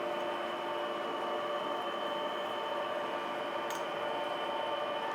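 Metal lathe running under power with a steady whine of several tones, taking a light 0.1 mm threading pass on a slender shaft. A brief faint click about three and a half seconds in.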